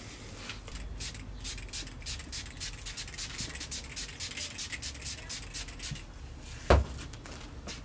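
Cloth rubbing and wiping over the glossy carbon fiber hood in repeated short strokes, applying the surface prep before ceramic coating. There is a brief thump near the end.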